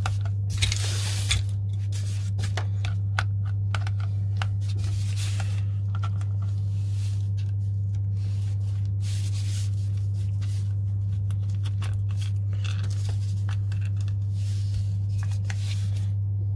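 Scattered clicks and short scrapes of a flat-head screwdriver working the grip screws out of a WE 1911 airsoft pistol's frame, then a grip panel being lifted off, all over a steady low hum.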